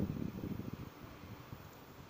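Wind buffeting the phone's microphone in uneven low gusts, strongest at the start and easing off, over a faint steady hiss.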